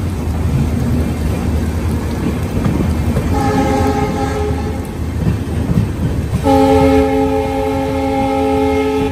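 Indian Railways express train running over the rails with a steady low rumble. The locomotive horn sounds twice: a short blast about three seconds in, and a longer one from about six and a half seconds in until near the end.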